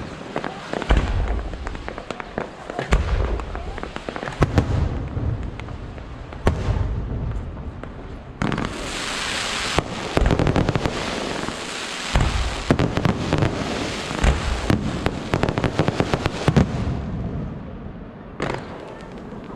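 Aerial fireworks display: a rapid run of shells launching and bursting with deep booms and sharp cracks, mixed with dense crackling. It is busiest from about eight seconds in and eases off near the end.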